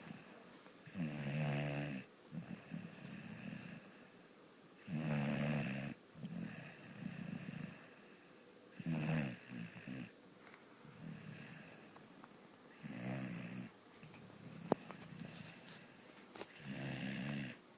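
Dog snoring in its sleep: a loud snore about every four seconds, five in all, with quieter breathing between them. A single sharp click sounds about three-quarters of the way through.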